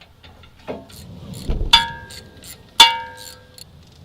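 Metal parts and tools being handled, with small clicks and two ringing metallic clanks about a second apart; the second clank is the louder.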